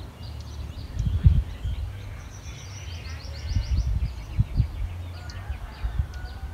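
Wind buffeting the microphone in low rumbles and gusty thumps, with small birds chirping now and then and a quick run of high notes about two seconds in.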